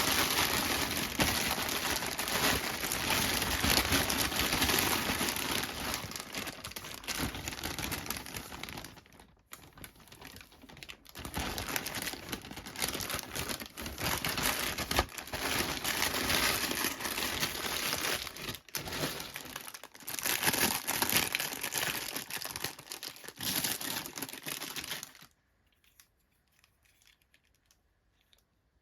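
Doll packaging crinkling and rustling as it is handled and opened, with a short lull about ten seconds in. It stops about 25 seconds in, leaving only faint clicks.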